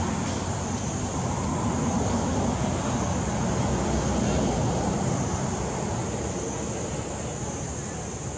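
Steady outdoor background noise, an even hiss-and-rumble with no distinct calls or knocks, easing slightly toward the end.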